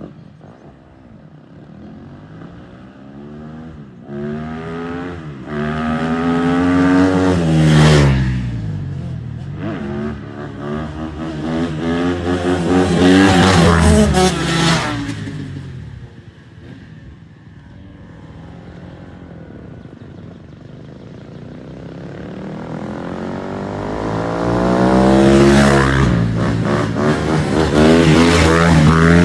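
A dirt bike's engine revving up and down. It swells to a loud peak and falls away about three times, with its pitch rising and then dropping as it rides past.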